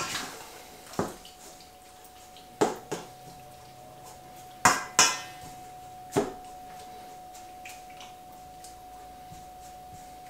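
Metal tablespoon clinking and scraping against a stainless steel mixing bowl while stirring strips of beef in marinade: half a dozen sharp clinks over the first six seconds, then only faint stirring over a steady low tone.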